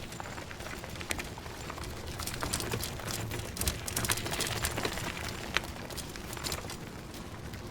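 Bicycle rolling along, with tyre noise and a run of small clicks and rattles from the bike. It grows louder partway through, with one sharper click, then eases off.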